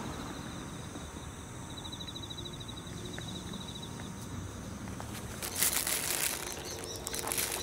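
A thin white plastic bag crinkling in a hand, in a couple of short rushes over the last two seconds, over a low steady outdoor rumble.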